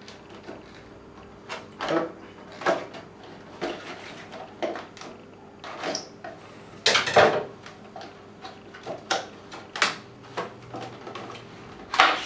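Scissors cutting open the clear plastic wrapping of a tablet sleeve: a string of short snips, crinkles and knocks of handling, the loudest about seven seconds in and again near the end.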